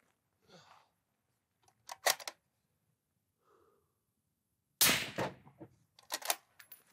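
A single shot from a suppressed bolt-action rifle about two-thirds of the way through, with a short decay. It is preceded by a few sharp clicks and followed by quick metallic clicks of the bolt being worked.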